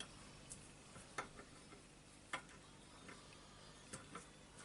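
A few faint, sharp clicks of a metal bolt and small parts being handled, scattered irregularly, the loudest about two seconds in.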